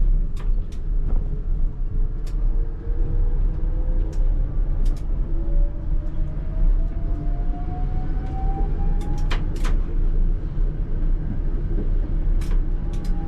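Tatra T3R tram under way: a steady low rumble of wheels on rail, with the electric traction drive's whine rising steadily in pitch as the tram accelerates, ending about nine and a half seconds in. Sharp clacks of wheels over rail joints, several in quick succession near the end.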